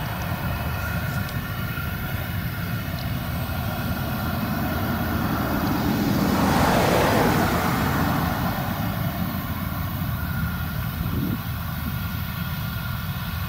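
Claas Lexion 770 TT combine harvester running under load while threshing rapeseed: a steady low drone with several steady whining tones above it. About halfway through the sound swells into a louder rushing wash for a second or two, then settles back.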